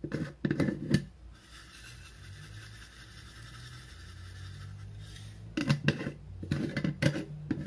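Kitchen handling clatter: a quick run of knocks and clinks in the first second and again in the last two seconds, with a faint steady hum between.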